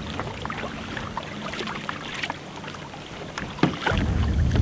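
Kayak paddle strokes: blades dipping into calm water, with scattered small splashes and drips. Wind starts buffeting the microphone almost four seconds in.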